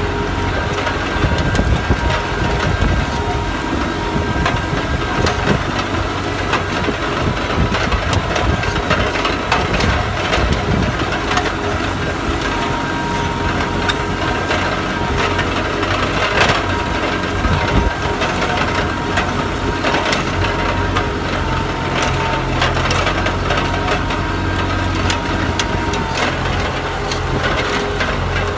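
Tractor working under load, pulling a four-bottom mouldboard plough through stubble: a steady engine hum under the crunch of soil and straw being turned, with many small clicks and knocks from the plough and hitch.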